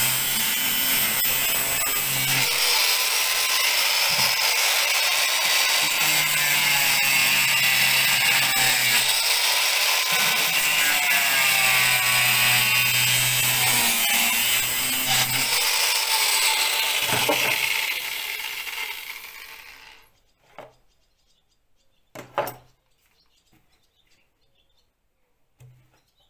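Angle grinder fitted with a metal-cutting disc slicing through a plastic jerrycan: a steady high hiss over the motor's whine, the low hum coming and going as the cut is worked. About eighteen seconds in the grinder runs down and stops, and a few light knocks follow.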